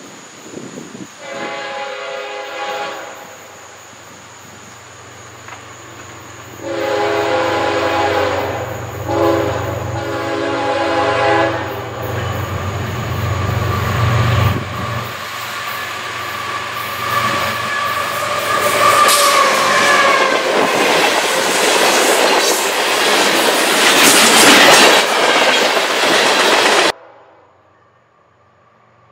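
Train horn sounding a short blast, then a longer two-part blast over a low engine drone. The train then passes close by with rising wheel and rail clatter, and the sound cuts off abruptly near the end.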